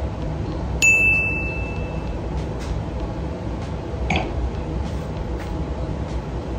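A drinking glass gives one bright clink about a second in, ringing out and dying away over about a second. A steady low rumble runs underneath.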